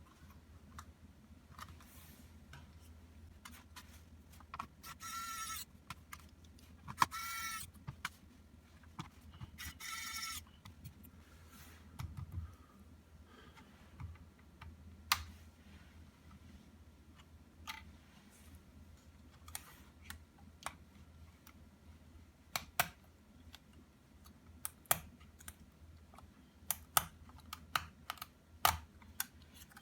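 Scattered small clicks and taps of tools and plastic laptop case parts being handled while the laptop is taken apart, with three short noisy scraping sounds about five, seven and ten seconds in. The clicks come more often near the end.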